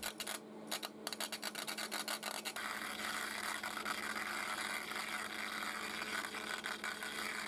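Spark discharges of a homemade resistor-capacitor EDM machine crackling as stacked thin phosphor-bronze sheet electrodes burn under water, in irregular snaps; about two and a half seconds in, with brass sheet electrodes, the crackle turns denser and steadier. The erratic sparking is an unstable burn.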